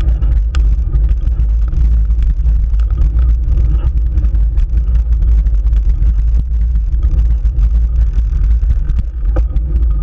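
Wind and road rumble on the microphone of a camera mounted on a moving road bicycle: a loud, steady low rumble.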